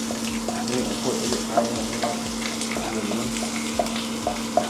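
Food sizzling in a hot frying pan while a spoon stirs and scrapes the pan in short repeated strokes, about two a second.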